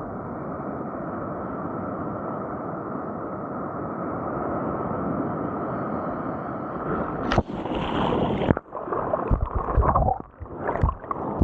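Ocean surf washing steadily and muffled, then about seven seconds in a wave surges in with a sudden loud rush lasting about a second, followed by irregular splashing and knocks.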